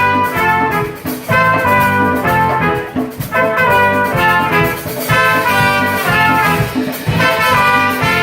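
Trumpet playing a melody in held notes, in phrases of about two seconds, over a backing accompaniment with a bass line.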